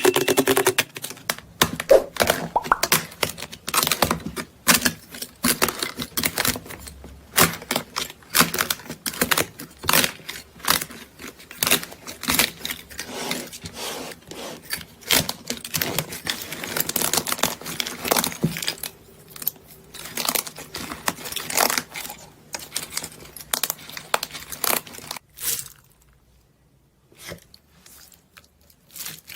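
Slime being pressed and squeezed, giving dense, irregular crackling and popping that stops near the end.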